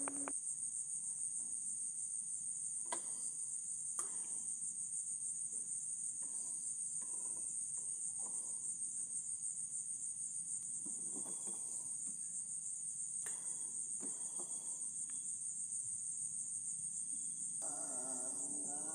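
Night insects, crickets, shrilling in one steady, high, unbroken chorus. There are a few faint clicks, and near the end a lower pitched hum joins in.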